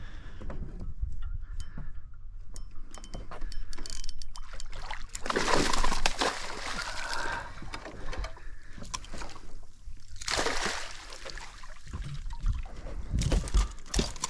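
Hooked tarpon thrashing at the surface, in three bursts of splashing; the longest comes about five seconds in, with shorter ones after ten seconds and near the end.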